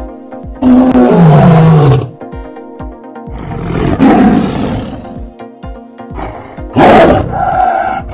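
Tiger roaring three times, about three seconds apart, over background music. The first roar falls in pitch.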